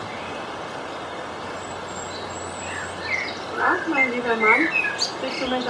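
Garden ambience: a steady background hiss with faint birds chirping. About three and a half seconds in a person's voice is heard briefly, and again near the end.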